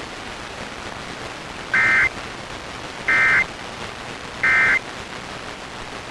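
Emergency Alert System end-of-message data bursts: three short, identical warbling digital tone bursts about a second and a half apart, marking the end of the alert, over a steady radio hiss.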